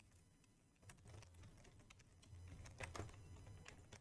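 Faint computer keyboard typing: scattered single keystroke clicks, coming in a quicker run a little past the middle.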